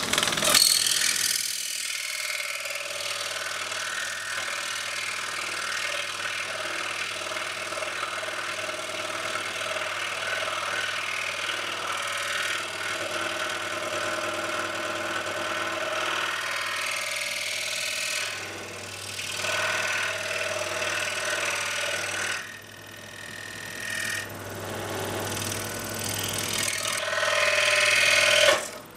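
Scroll saw running with a precision-ground-tooth blade, cutting through a taped-up wooden table-leg blank; a steady motor hum under the rasp of the blade, dipping briefly twice in the second half.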